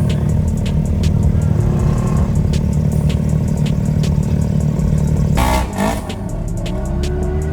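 Side-by-side off-road vehicle engine running under load, with many sharp ticks and clatter. About five and a half seconds in comes a short rush of noise and the engine note drops, then it runs on at a lower, wavering pitch.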